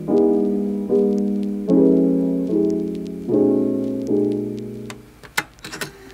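Background music: soft piano chords struck about every 0.8 seconds, each dying away, fading out about five seconds in. A few sharp clicks follow near the end.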